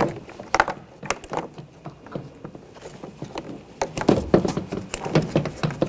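Plastic interior door panel being handled and fitted against the car door, with irregular knocks, clicks and rustles that come thicker about four seconds in.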